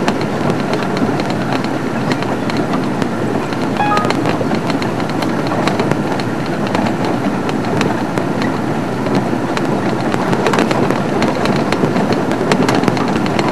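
Open game-drive vehicle driving along a rough dirt track: engine running steadily under a constant rumble of tyre and body noise, with frequent small knocks and rattles from the bumps.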